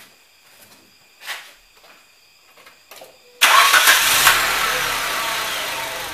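Nissan car engine starting about three and a half seconds in: it catches suddenly and flares up, then its pitch and loudness fall back toward idle.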